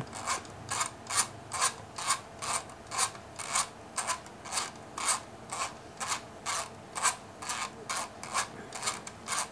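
Screwdriver turning the 24-hour dial of a Legrand QT31 analog timer switch forward in short, repeated strokes, a scraping rasp about twice a second.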